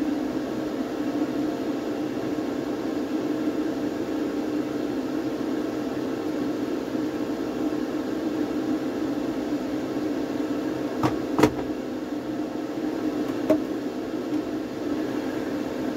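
Spray booth extraction fan running with a steady hum. Two short sharp clicks come near the end.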